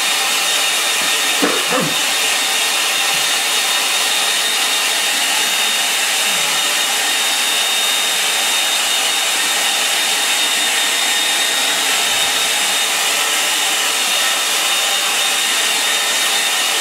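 Handheld hair dryer blowing steadily at close range: an even, loud rush of air with a faint high whine.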